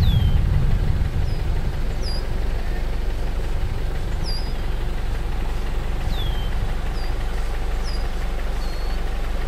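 A steady low rumble, loudest in the first second, under a scattering of short, high, falling bird chirps, two of them longer down-slurred whistles.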